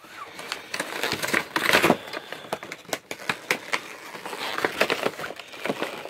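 Stiff clear plastic blister packaging of a carded action-figure two-pack crinkling and crackling as hands press and pull at it to open it, loudest about a second and a half in.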